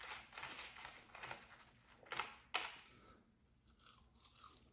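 Close-up eating sounds: a person chewing McDonald's chicken nuggets and fries, with handling noise, in short irregular bursts, the sharpest a little after two seconds in.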